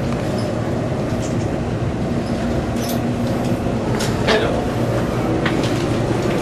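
Subway train running, heard from inside the carriage: a steady rumble with a low hum. Faint short sounds rise briefly above it, one about four seconds in.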